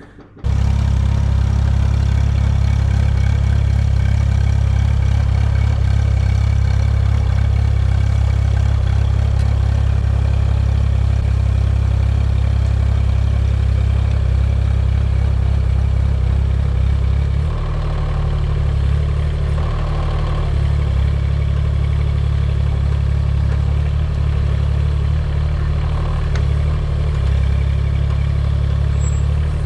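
Rippa mini excavator's small diesel engine running steadily at working speed, cutting in suddenly just after the start. Its note drops slightly and wavers past the middle, as the load on the machine changes.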